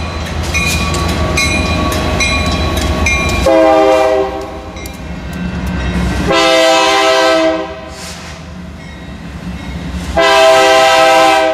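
Diesel freight locomotive horn sounding three blasts of about a second each, spaced a few seconds apart. Before the first blast, a bell rings rapidly over the low rumble of the diesel engines.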